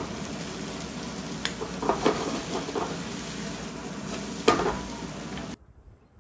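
Dining-room clatter: a steady background hubbub with dishes clinking. There is a sharp clink about a second and a half in and a louder one about four and a half seconds in, and the sound cuts off near the end.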